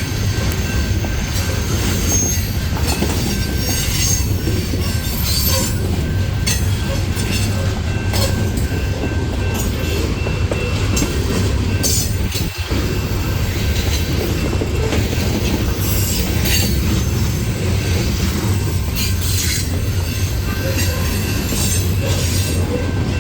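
Loaded coal hopper cars of a freight train rolling past on a curve: a steady heavy low rumble of wheels on rail, with a thin, steady high wheel squeal over it.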